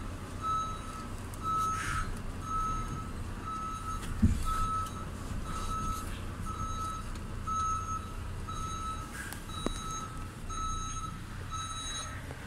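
A truck's reversing alarm beeping steadily, about two beeps a second, over the low, steady running of a heavy diesel truck engine. A single dull thump about four seconds in.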